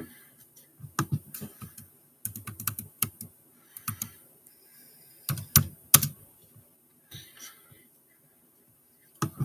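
Typing on a computer keyboard: irregular bursts of keystrokes with pauses between, and two louder taps a little past the middle.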